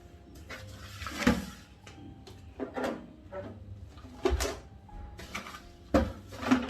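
A woman hiccupping about five times, roughly every second and a half, over faint background music.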